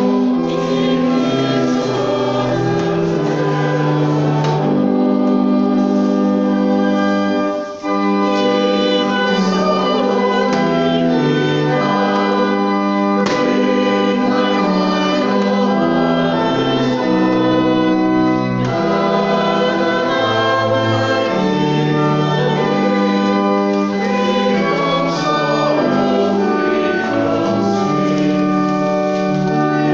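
Hymn singing by voices with organ accompaniment, sustained notes moving line by line, with a brief break about eight seconds in.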